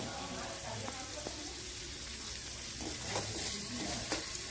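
Sliced onions sizzling in hot oil in an aluminium kadai while being stirred with a metal ladle, with a few clinks of the ladle against the pan in the second half.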